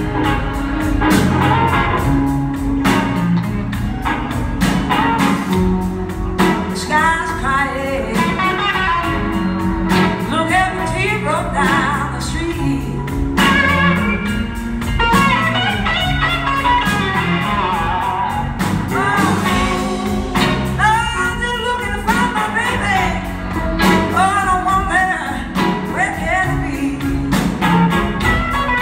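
Live band playing a slow blues, heard from the audience in the hall: an electric guitar lead with gliding, bending notes over bass and drums.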